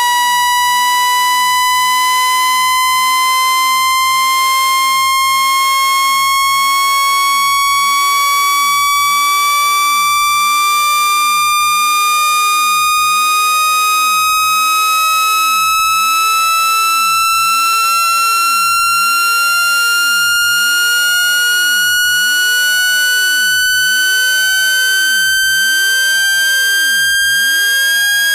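An electronic test tone glides slowly and steadily upward in pitch, high and buzzy with strong overtones. It is a speaker-cleaning frequency sweep, played to shake water and dust out of a phone speaker.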